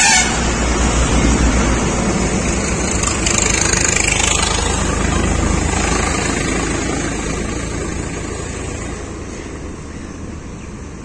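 Motor vehicle rumble from a nearby road, loudest at first and slowly fading away.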